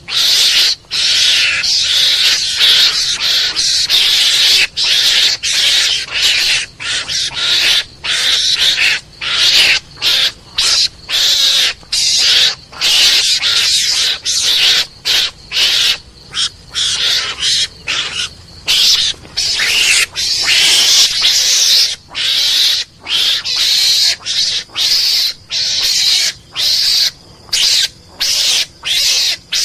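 Mongoose (garangan) lure call: a continuous run of harsh, hissing calls in short, irregular bursts with brief gaps between them.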